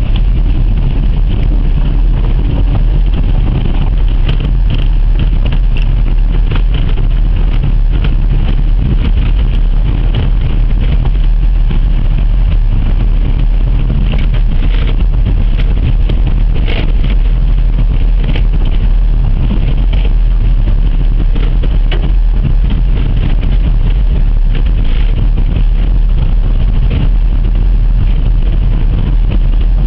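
Hyundai Picanto hatchback driving along a rough gravel track, heard from inside the car: a steady, loud, low rumble of engine and tyres on the dirt, with occasional light knocks and rattles.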